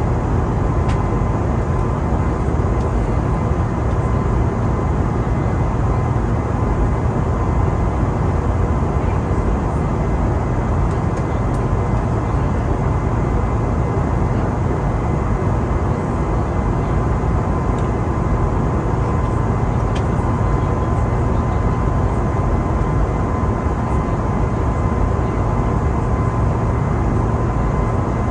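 Steady cabin noise inside an Airbus A320neo in flight: a deep, even rush of engine and airflow with a faint steady whine running through it.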